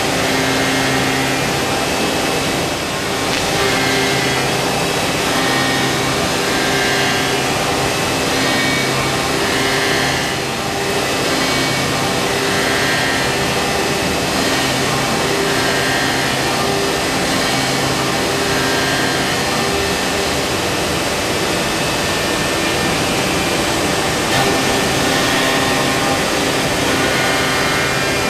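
Busellato Jet Optima C21 CNC machining centre routing a wooden interior door: a loud, steady machine rush with several high tones that switch on and off in steps as the cut changes, dipping briefly about three and ten seconds in.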